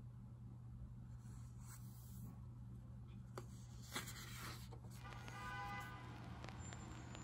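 Pages of a paperback book turned by hand: soft paper rustles, with a sharper page flick about four seconds in, over a low steady hum. A faint, briefly held pitched tone sounds a little past the middle.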